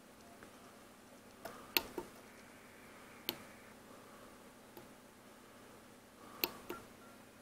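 Sharp clicks of the Elecraft K2 transceiver's front-panel push buttons being pressed and released, over a faint steady background. The loudest come as two quick pairs, about two seconds in and again about six and a half seconds in.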